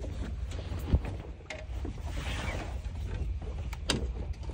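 Wind rumbling on the microphone aboard a small boat at sea, with a brief wash of water just past the middle and a couple of light knocks.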